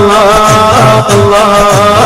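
Devotional music in a Middle Eastern style: a held, wavering melody over a steady low beat, the opening of a sung salawat in praise of the Prophet.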